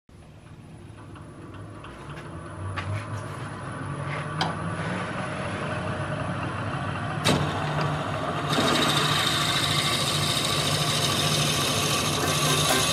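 Wood lathe running with a steady motor hum, fading in and growing louder, as a twist drill bit held in the tailstock drill chuck is fed into the end of a spinning wooden handle; a hissing cutting noise joins in about two-thirds of the way through as the bit bores into the wood.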